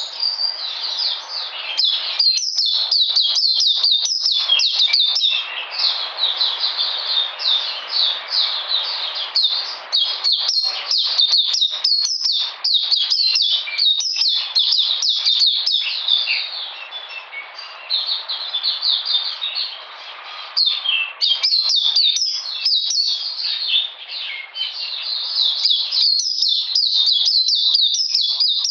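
Caged white-eye singing a long, fast run of high twittering chirps, with a brief lull about two-thirds of the way through.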